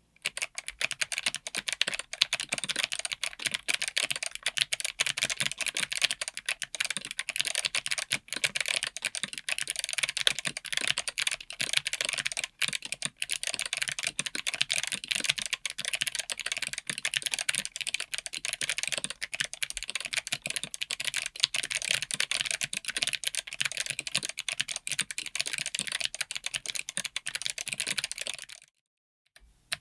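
Fast continuous typing on a mechanical keyboard with Kailh BOX Midnight Jade clicky switches, a dense run of loud clicky keystrokes that stops abruptly about a second before the end.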